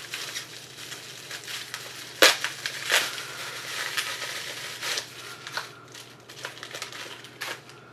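Packaging crinkling and crackling as a cosmetics product is unwrapped and taken out of its bag by hand, with a couple of sharper snaps about two and three seconds in.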